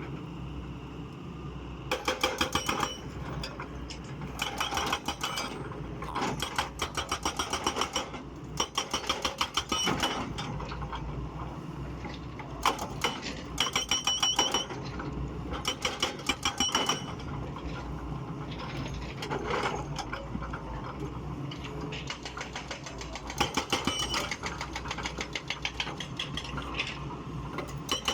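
Excavator's diesel engine running steadily, broken every few seconds by bursts of rapid metallic clatter about a second long.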